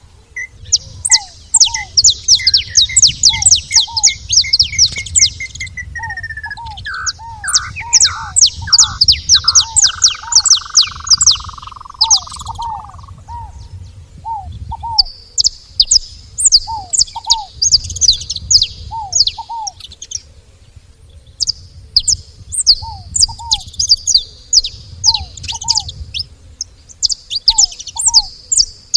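Saffron finches chirping and calling at a feeding spot: dense, rapid high chirps, thinning out briefly a couple of times. A lower note repeats in pairs every second or two, with a low rumble underneath.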